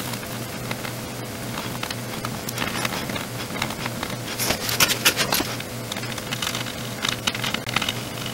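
Soldering iron tip melting solder through flux on a circuit-board joint, crackling and sizzling in short bursts, loudest about halfway through and again near the end.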